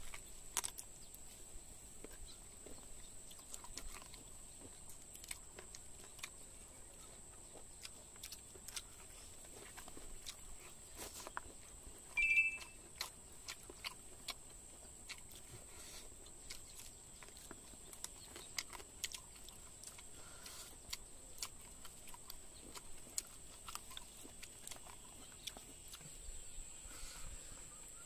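Close-up chewing and mouth sounds of a person eating fried chicken and rice by hand, a scatter of small wet clicks and smacks. A steady high-pitched whine runs underneath, and a brief high chirp stands out about twelve seconds in.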